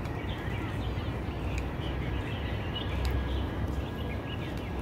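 Small birds chirping repeatedly over a steady low rumble of outdoor city noise.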